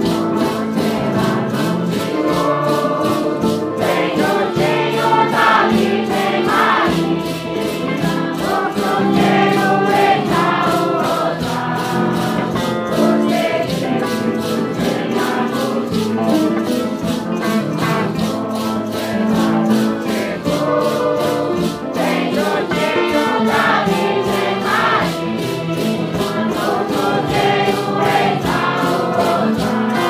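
A group of voices singing together over a steady percussion beat.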